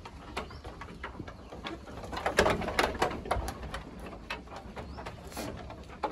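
Irregular knocks and taps of goat hooves on a raised wooden slatted floor as a doe and her kids shift about, thickest and loudest around two and a half to three and a half seconds in.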